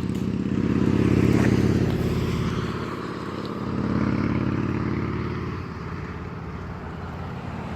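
Motor traffic passing on the road: engine noise swells about a second in and again around four seconds, then fades.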